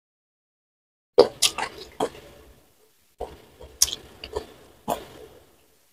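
Close-miked mukbang chewing: wet mouth smacks and clicks from a mouthful of rice and sambal fish, in two bursts after about a second of dead silence.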